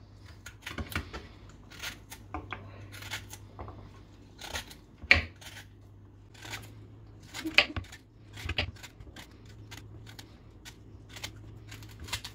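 Hand work on raw vegetables: irregular scrapes and clicks of turnips being peeled and carrots being cut, with two sharper knocks, about five and seven and a half seconds in, from the knife striking the cutting board.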